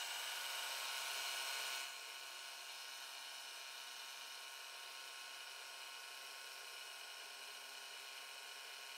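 Milling machine spindle running with an end mill cutting along the edge of a metal casting: a steady whine made of many even tones. It is louder for the first two seconds, then drops a little and holds steady.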